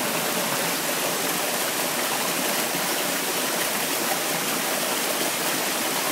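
Mountain stream in full winter flow rushing steadily down a steep bed. The noise is a constant rush of water with no breaks.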